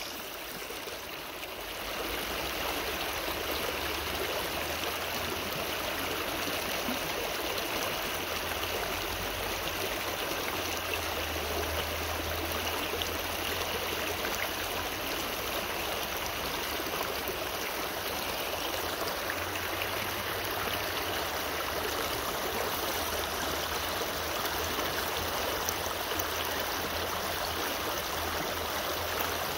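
Shallow rocky stream rushing and splashing over and between rocks: a steady rush of water that grows a little louder about two seconds in.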